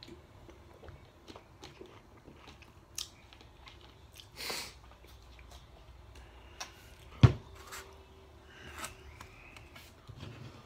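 Quiet mouth sounds of drinking and eating: swallowing and chewing with scattered small clicks. A single sharp knock, the loudest sound, comes a little past the middle.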